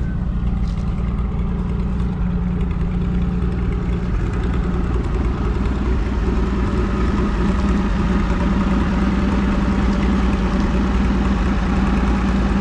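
Farmall 560 tractor engine running steadily.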